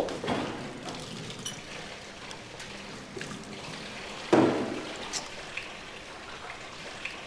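Water running from a tap into a sink, with light clinks and a dull thump about four seconds in.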